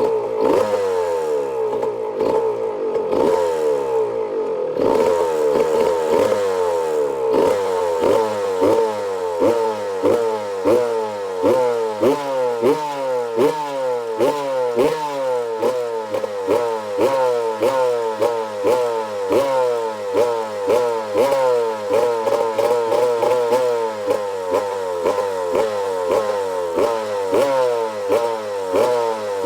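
Freshly rebuilt Yamaha YZ125 125cc two-stroke single running, the throttle blipped over and over, about once a second, each blip rising and falling in pitch.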